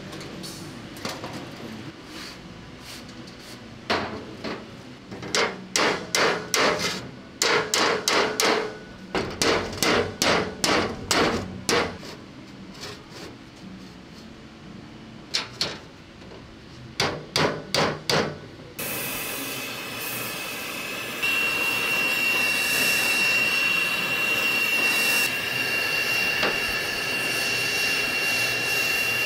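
Clusters of hammer blows ringing on a rusted, perforated steel ammunition-rack panel as it is straightened. About two-thirds of the way in, an oxy-acetylene torch takes over with a steady hiss, heating the bent edge of the panel.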